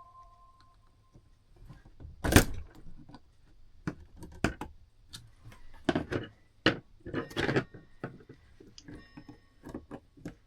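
Clicks, knocks and metallic clinks of tools and parts of a clock movement being handled and worked apart, the loudest knock a couple of seconds in. From about two-thirds of the way through, small metal parts ring briefly after some of the taps.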